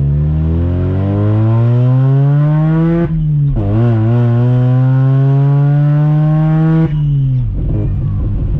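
Mazda 12A rotary engine of a 1983 RX-7 accelerating hard: its pitch climbs steadily, drops sharply about three seconds in at a gear change, climbs again through the next gear, then falls away as the throttle is lifted about seven seconds in.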